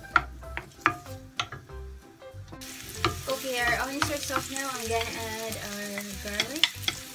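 Chopped onions sizzling in hot oil in a nonstick frying pan as a wooden spoon stirs them, knocking against the pan. The knocks are sharp in the first couple of seconds, and the steady sizzle comes in about two and a half seconds in.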